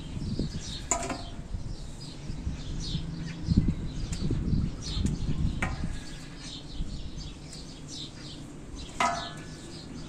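Bean plants rustling as fresh beans are picked off the stalks by hand, with three light knocks and a short ring, about a second in, near six seconds and near nine, as pieces drop into a bowl. Small birds chirp throughout.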